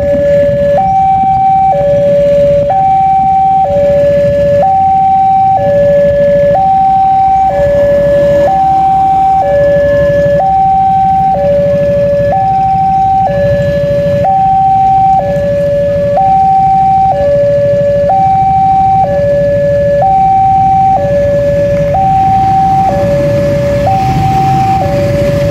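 Railway level-crossing warning siren sounding steadily, alternating between two tones, each held about a second, with a low rumble beneath.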